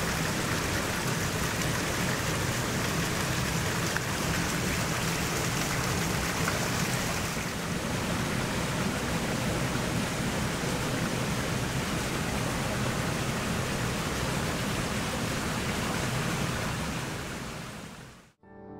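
Steady rush of a mountain stream's flowing water, fading out near the end.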